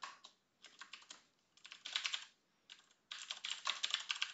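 Computer keyboard typing: four quick runs of keystrokes with short pauses between them.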